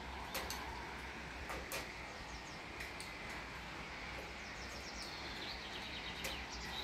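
Steady hiss of rain and wind outdoors, with a bird calling in a quick run of short high chirps past the middle, and a few sharp ticks scattered through.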